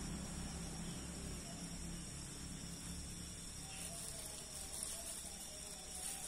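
Night insects, crickets, trilling steadily in a high, even hiss that swells slightly near the end, over a low hum that fades out in the first second or two.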